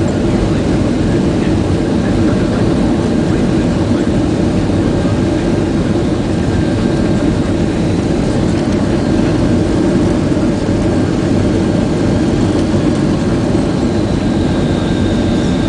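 Steady engine and airflow noise inside the passenger cabin of a Boeing 767-300 airliner during landing, a low even rumble with two faint, steady high whines over it.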